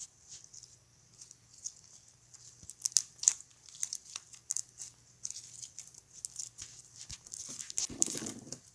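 Slime being squeezed and played with by hand: irregular small wet clicks and crackles of popping air bubbles, with a denser squelch near the end.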